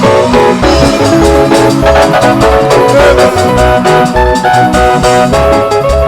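Loud music with a steady, heavy bass beat under held instrument notes.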